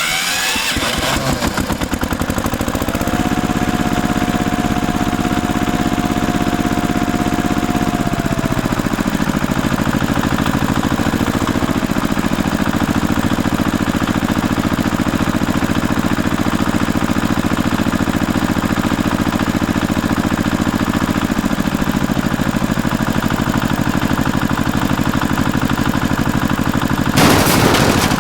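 Construction-vehicle engine running at a fast, steady chug. A higher whine rises about three seconds in, holds, and falls away around eight seconds. A short louder burst comes near the end.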